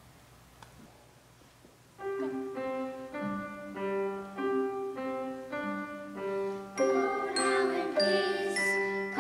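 About two seconds of near quiet, then an instrumental introduction starts: a melody of clear, separately struck, bell-like notes. About seven seconds in, a brighter jingling, ringing layer joins and the music gets louder.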